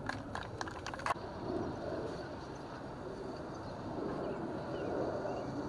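Outdoor soccer-match ambience: faint distant voices and a steady low rumble, with a few short sharp clicks in the first second.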